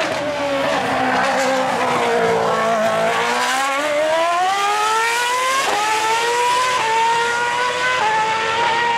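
Formula One car's Renault V8 engine: its high-pitched note falls as the car slows, then climbs hard as it accelerates away, dropping sharply at each of three quick upshifts.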